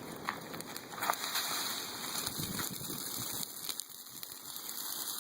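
Bonfire of pruned tree branches burning: a steady hiss of flames with a few scattered sharp crackles and pops of the burning wood.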